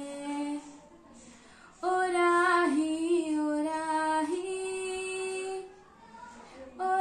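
A young woman singing a Hindi song alone, with no accompaniment. A phrase ends just after the start; after a pause of about a second she sings a phrase of long held notes that steps up in pitch partway through and fades out near the end.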